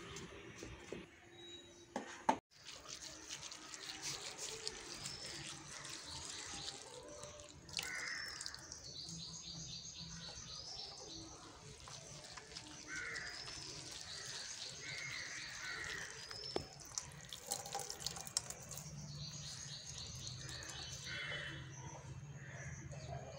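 Wet squelching and light splashing as hands squeeze and stir a grated mash in water in a steel bowl. Birds call repeatedly in the background with quick trills and short chirps.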